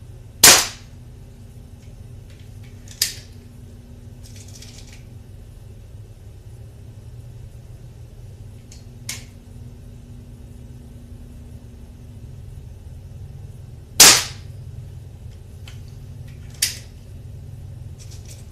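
Mondial Oklahoma .177 smoothbore spring-piston air pistol fired twice, two sharp cracks about 13 seconds apart, with fainter clicks in between.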